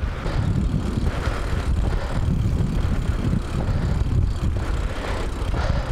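Wind rushing over the microphone of a camera on a moving bicycle: a loud, steady low rumble.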